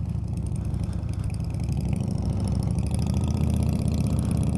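Honda Shadow Phantom's V-twin engine running at low road speed, heard from the bike itself, growing a little louder about halfway through as it picks up.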